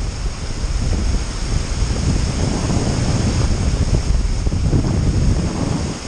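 Water rushing steadily over a spillway ledge, with wind buffeting the action camera's microphone in uneven gusts.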